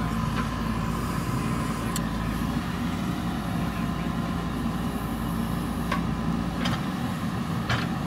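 JCB backhoe loader's diesel engine running steadily under digging load as the backhoe arm swings and digs, with a few sharp knocks over the engine noise.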